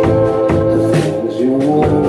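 A live rock band playing a song, with electric guitar over an even drum beat about two hits a second, and a man singing into a microphone.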